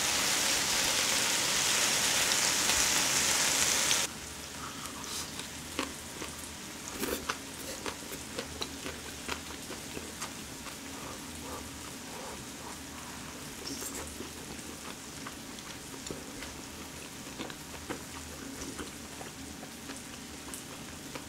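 Marinated duck ribs sizzling on a tabletop grill plate, loudly at first, the sizzle dropping suddenly about four seconds in to a quieter frying hiss. Over the quieter sizzle come small clicks and smacks of chewing.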